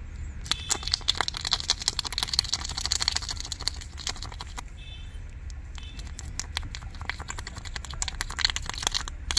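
A thin steel rod scraping and jabbing in the grease hole of a Tata Hitachi 210 excavator bucket pin, clearing the packed grease that has blocked it: two runs of rapid scratchy clicks with a short pause between them.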